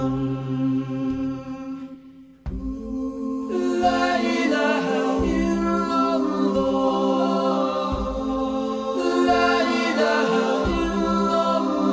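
A cappella singing with no instruments. The singing fades out and a new sung passage starts abruptly about two and a half seconds in.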